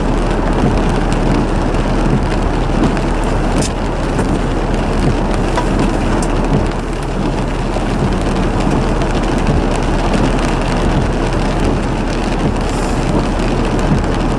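Norfolk Southern freight train rolling past, a steady loud rumble and roar of wheels on rail with a few faint sharp clicks.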